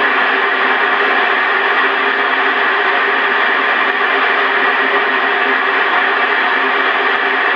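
Steady FM receiver hiss from an amateur radio tuned to 145.825 MHz, the ISS APRS packet frequency, with its squelch open. No packet or voice is coming through.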